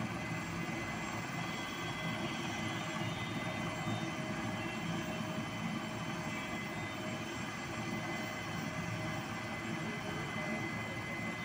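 Helicopter's turbine engine idling on the ground: a steady, even whine over a low rumble.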